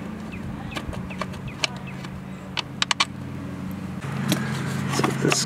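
Scattered sharp metal clicks and clinks of hand tools working the fasteners of an ATV's air-filter box, over a steady low hum that grows louder near the end.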